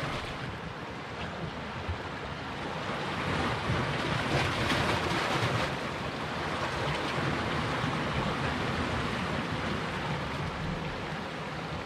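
Sea surf washing and breaking against the rocks at the shoreline, a steady rushing that swells about four seconds in.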